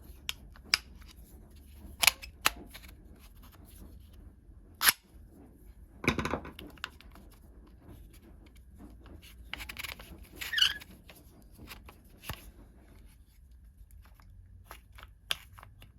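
Metal clicks and scrapes of a quick-grip bar clamp's jaw, lever and locking plates being worked along its rusty steel bar. There is a sharp click about five seconds in and longer scraping about six and ten seconds in. Rust on the bar is binding the plates, as the owner thinks.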